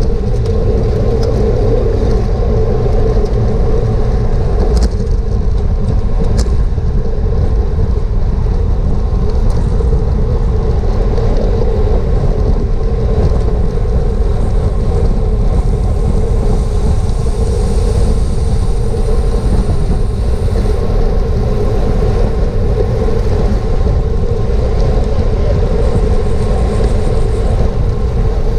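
Wind rushing over a GoPro microphone on a bicycle at race speed: a loud, steady rumble with a constant hum underneath, and a couple of faint clicks about five and six and a half seconds in.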